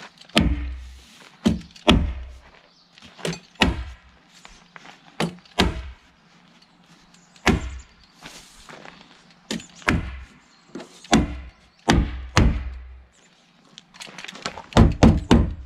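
Hammer tacker driving staples through house wrap into the coop's plywood wall: sharp thuds at irregular spacing, often two in quick succession, with a quick run of strikes near the end.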